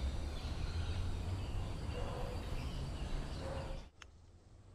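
Outdoor background noise with a strong low rumble and a few faint bird calls. It cuts off abruptly about four seconds in, leaving a much quieter background.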